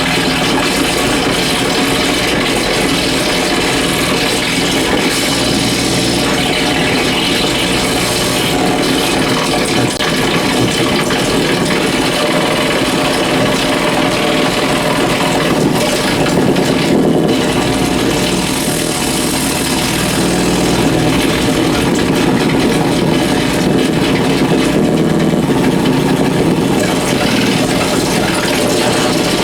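Amplified electrical interference from compact fluorescent bulbs flickering on dimmer switches, picked up by exposed guitar cables and played unprocessed: loud, continuous dense noise with a steady hum underneath. The bulbs cannot dim properly, and the malfunction is what makes the sound. Near the middle the high end thins out briefly.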